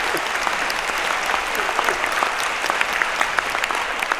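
Audience applauding: many hands clapping, dense and steady.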